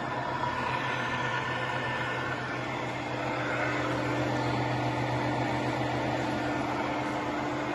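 Steady machinery hum with a constant low drone.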